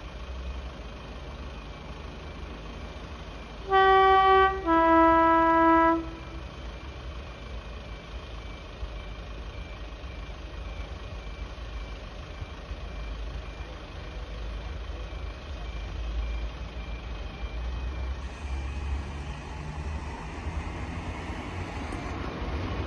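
Rail tamper approaching with its engine running in a steady low rumble that grows louder near the end. About four seconds in, it sounds its two-tone horn: a short higher note, then a longer lower one.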